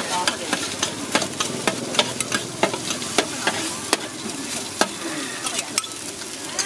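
Metal spatula scraping and clacking against a large steel wok at irregular strikes, a few a second, as instant noodles and vegetables are stir-fried in hot oil, with a steady sizzle underneath.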